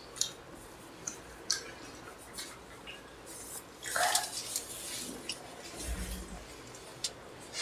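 Cutlery clinking and scraping on plates while instant noodles are eaten, with scattered sharp clicks, a louder burst about four seconds in and a dull thump near six seconds.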